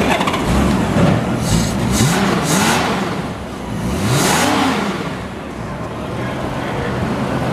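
1995 Honda GL1500 Gold Wing's flat-six engine running, blipped twice on the throttle about two and four seconds in, each rev rising and falling back to idle.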